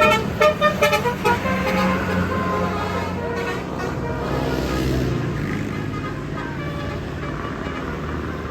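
Basuri telolet multi-tone bus horn playing a quick run of short, changing-pitch toots over about the first second, after which only the bus engine and traffic run on.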